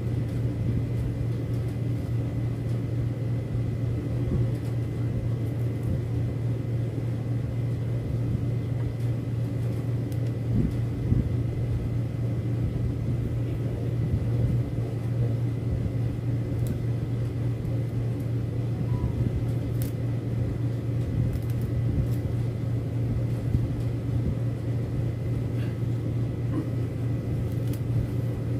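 A steady low hum with a few faint light clicks.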